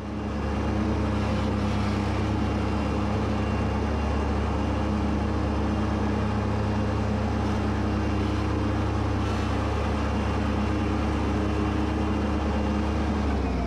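Kubota B2601 compact tractor's three-cylinder diesel engine running steadily with its mower deck. It comes up to full level at the start, and near the end the pitch falls as the engine is throttled down.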